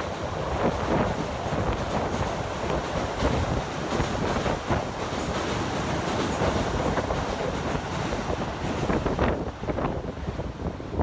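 A Keisei Line train passing, the steady sound of its wheels running on the rails lasting through the whole stretch.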